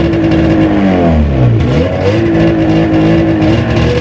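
Ski-Doo MXZ 583 two-stroke snowmobile engine running just after a cold start, its revs sagging sharply about a second in, nearly stalling, then picking back up and holding. It will not settle into an idle on its own and has to be kept primed.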